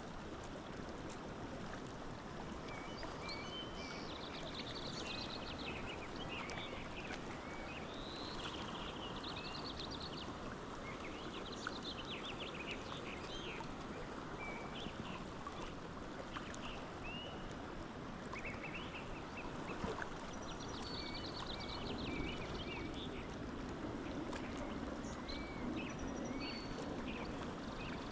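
A stream flowing steadily, with small birds singing over it in repeated chirps, trills and short rising calls.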